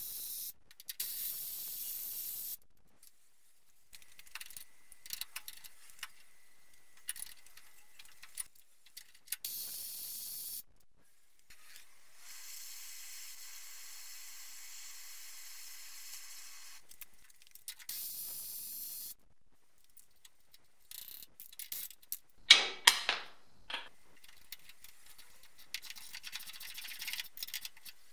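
Several short hissing bursts from an air-powered tool working on a car's front wheel hub, then a longer, steadier spray hiss. Near the end come metal clicks and one loud clank as tools are fitted to the hub.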